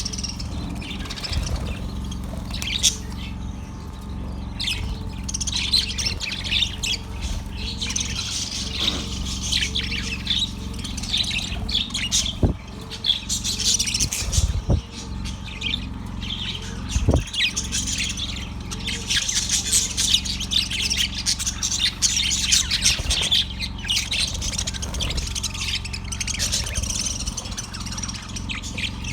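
Budgerigar chirping and chattering without pause, quick chirps mixed with squawks, over a steady low background rumble. A few sharp knocks sound about halfway through.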